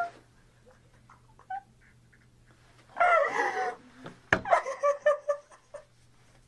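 A woman sobbing: high, wavering cries break out about three seconds in and again a moment later, with a sharp catch of breath between them. A faint steady hum lies underneath.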